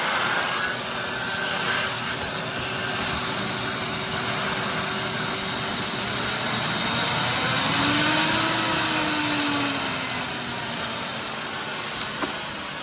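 Aspiron bagless canister vacuum cleaner running with a steady whooshing motor noise. Its pitch rises and falls once near the middle.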